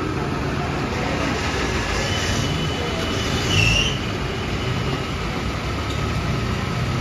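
Petrol dispenser pumping fuel into a motorcycle's tank: a steady mechanical hum with a faint high whine, and a brief high squeal about three and a half seconds in.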